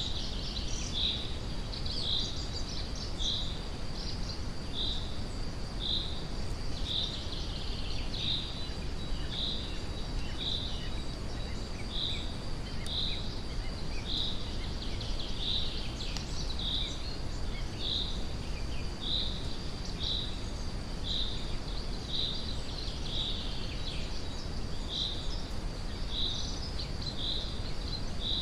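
Steady brown-noise rumble under forest ambience, with a bird repeating one short high chirp about once a second and a thin, steady high-pitched whine behind it.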